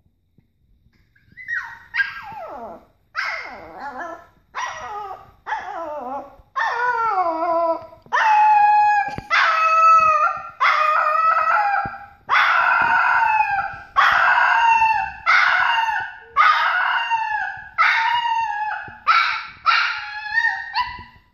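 Papillon puppy howling over and over, about fifteen howls a second or so apart. The first few slide steeply down in pitch; the later ones are longer and hold steadier.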